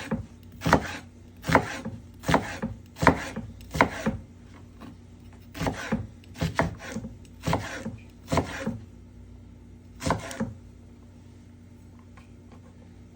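A knife chopping an onion on a cutting board: about a dozen sharp knocks at an uneven pace, stopping about ten seconds in.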